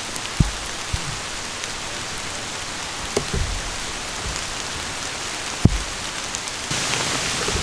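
Heavy rain falling steadily, with a few dull low thumps; the rain grows louder near the end.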